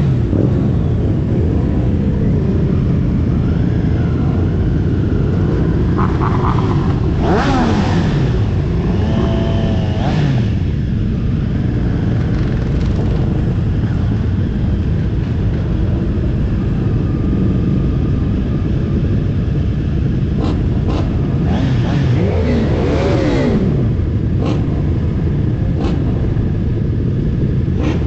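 Triumph Street Triple RS three-cylinder engine running steadily, its pitch falling and rising twice as the throttle is worked, once about a third of the way in and again near the end.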